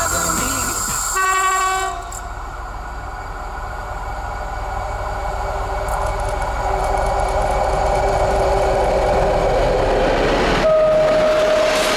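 An SU45 diesel locomotive and its train approaching, the running noise growing steadily louder; near the end its horn sounds a steady note.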